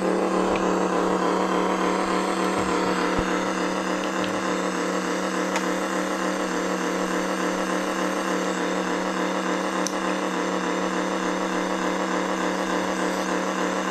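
Simulated car engine idling, played by an Arduino-built RC sound kit through a small speaker on a 3 W amplifier. A steady, even engine hum with no change in pitch.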